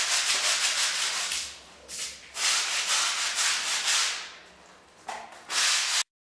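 Clothes being scrubbed by hand, cloth rubbed hard against cloth in rapid strokes. The scrubbing comes in bursts of about two seconds with short pauses and cuts off suddenly near the end.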